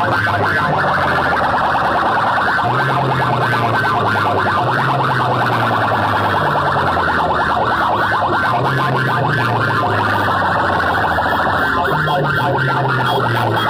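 Banks of horn loudspeakers on a competition DJ sound rig blasting at full volume: a harsh, rapidly pulsing electronic tone over a low bass line that steps between a few notes and repeats every couple of seconds.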